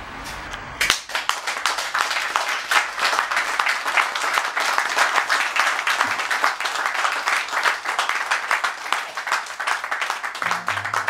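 Audience applauding, the clapping starting about a second in.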